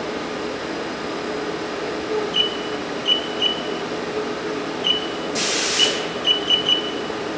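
Haas VF2-SS vertical machining center with its spindle running steadily at 4,000 rpm, a constant hum with a steady tone. A string of short high beeps runs over it, and a brief hiss comes about five and a half seconds in.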